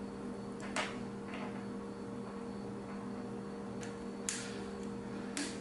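Quiet workbench room tone with a steady low hum, broken by a few faint light clicks as the soldering iron is set down and the small circuit board is handled.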